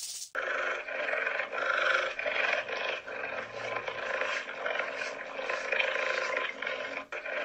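A cheetah growling: a continuous rough growl with a pulsing texture, starting abruptly just after the start and breaking off just before the end.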